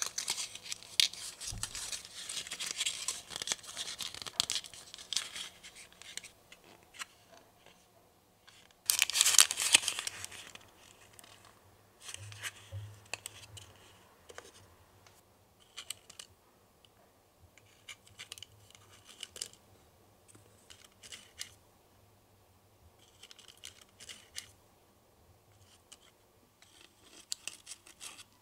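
Thin printed card rustling and creasing as a tiny paper box is folded by hand, with a louder burst of paper scraping about nine seconds in. After that come sparse light clicks and taps.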